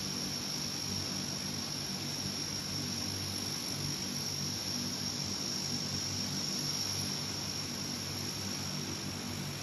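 Turboprop engines of a Lockheed L-188 Electra airtanker idling steadily with propellers turning: a constant high whine over a low hum. The engines are left running while the tanker is reloaded in the pit.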